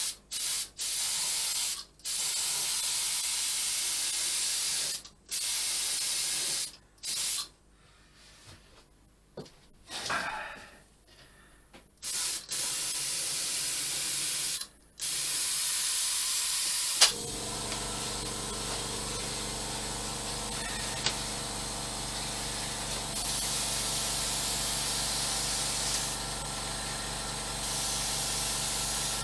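Gravity-feed paint spray gun hissing in short bursts as its trigger is pulled and released, spraying thinned paint. About seventeen seconds in, an air compressor starts running with a steady hum under a continuous spraying hiss.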